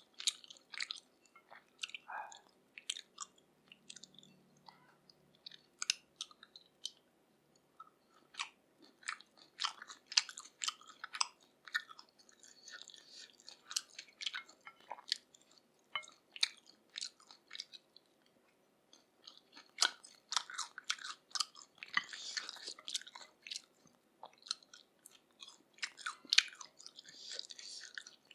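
Close-miked chewing of grilled pork neck in spicy sauce: irregular wet mouth clicks and smacks, with brief pauses between bites.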